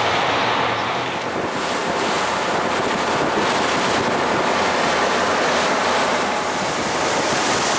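Steady noise of wind buffeting the microphone and sea water washing along the hull of a motor boat under way.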